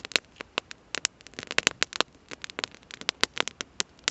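Campfire crackling, with irregular sharp pops several times a second.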